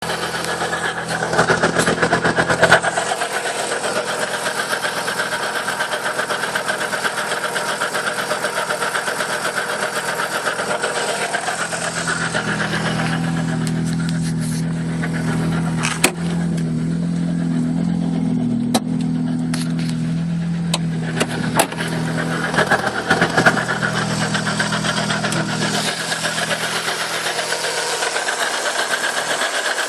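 Opel Corsa B 16V's four-cylinder engine running steadily, making noises the owner finds strange. About twelve seconds in, the higher noise drops away and a lower steady hum takes over, with a few sharp clicks. Near the end the earlier sound returns.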